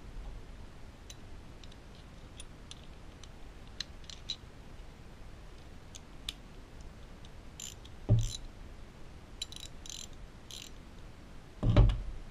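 A steel socket set and ratchet wrench being handled: light metallic clicks as sockets are fitted onto the ratchet's drive and the ratchet clicks, with two dull knocks, the louder one near the end.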